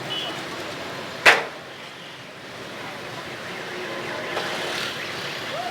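Steady street background noise, broken about a second in by one sharp, loud hit or swish that dies away quickly.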